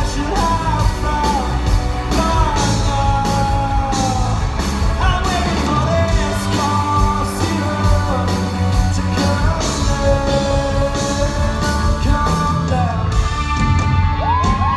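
Live band performing a rock song with a male lead singer over a steady drum beat, heard as a live concert recording. The singer holds a long rising note near the end.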